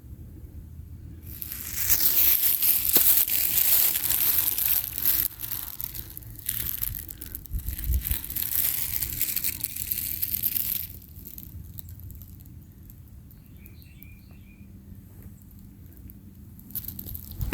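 Crinkling, rustling noise that starts about a second in and stops sharply after about ten seconds, followed by quieter moments with a few faint chirps.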